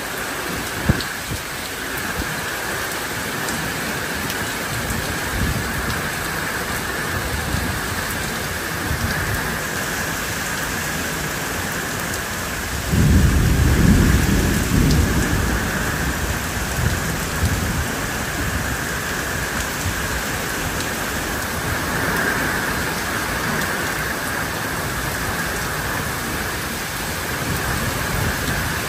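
Steady rain falling, with a roll of thunder that breaks in suddenly about halfway through and rumbles on for a few seconds before fading back under the rain.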